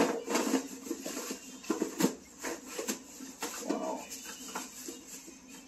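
Plastic packaging crinkling, with clear plastic food-storage containers rubbing and clacking as they are pulled out of a cardboard box. There is a sharp click about two seconds in.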